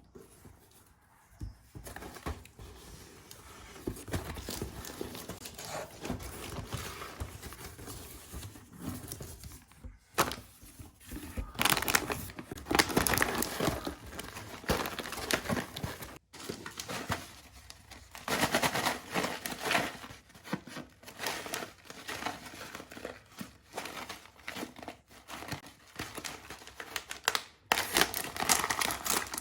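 Plastic snack packets crinkling and being torn open by hand, in irregular stretches of rustling that grow louder at times.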